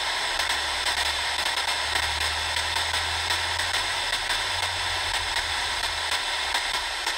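Steady FM static hiss from an XHDATA D-808 portable radio's speaker as it is tuned through the bottom of the FM band, around 85 to 88 MHz, with no station coming in: the band there is empty.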